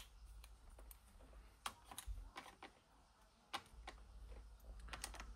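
Scattered light clicks and taps from small metal-framed wooden parts boxes with glass lids being handled and set down among one another, with a quick run of several clicks near the end.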